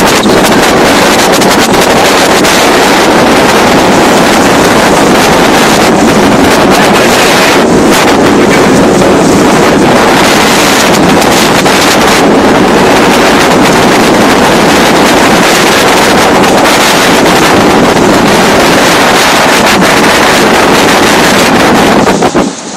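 Heavy wind buffeting the phone's microphone, steady and very loud, over water rushing along the hulls of a 30-foot Shuttleworth trimaran sailing fast. It drops away suddenly near the end.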